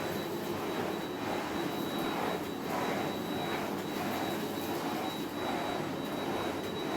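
Miele Blizzard CX1 Powerline bagless cyclone vacuum cleaner running steadily at its maximum power setting: a rush of air with a thin, steady high whine from the motor.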